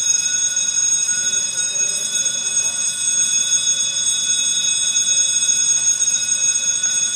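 Fire alarm sounding continuously during a system test: a loud, steady, shrill ringing made of several fixed high tones. Faint voices can be heard beneath it.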